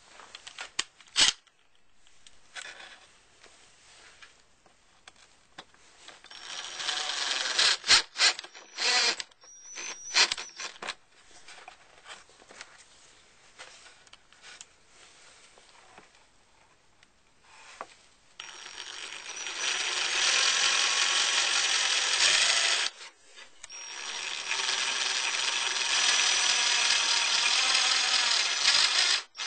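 Power drill driving screws into a plastic door-panel mount. It runs in a few short bursts, then in two long runs of several seconds each near the end, with clicks and knocks in between.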